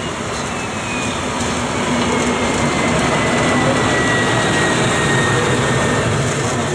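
DR class 110 (V 100) diesel-hydraulic locomotive passing close by at low speed, its diesel engine running steadily with a thin high whine that slowly falls in pitch. It grows louder as the locomotive draws level, about halfway through.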